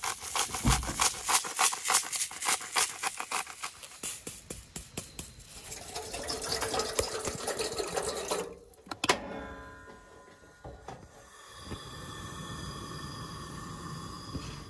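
A fast run of clicks for the first few seconds, then water pouring from a plastic jug into a steel kettle, stopping about two-thirds of the way in, with a sharp click just after.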